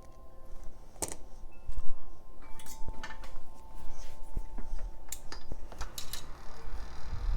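Small metal tools clicking and clattering on a workbench during close electronics repair work, with several sharp ticks over a faint steady high tone.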